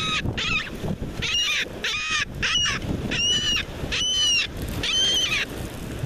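A gull calling over and over: about eight short cries in a row, each a brief rise and fall in pitch, with surf washing underneath. The calls stop shortly before the end.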